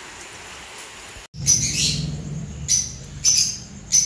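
Steady hiss of heavy rain that cuts off suddenly about a second in. Then caged birds give about five loud, short, shrill calls, roughly half a second apart.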